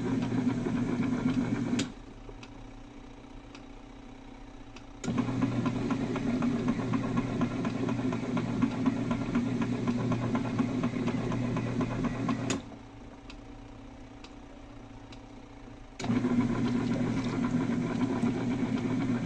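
Praxis Petit mini washing machine's agitator motor running with a steady hum. It switches off with a click, pauses about three seconds and clicks back on, twice, in its stop-start wash cycle.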